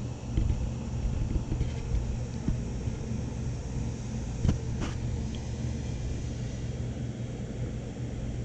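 Steady low rumble of background noise, with two faint short knocks about halfway through.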